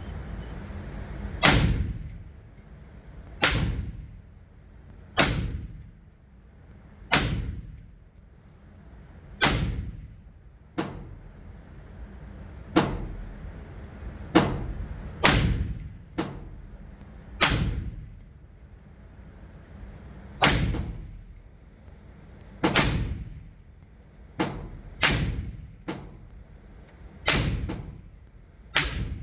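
Gunshots at an indoor shooting range, about eighteen in all, one every one to two seconds at an uneven pace, each a sharp crack with a short echoing tail.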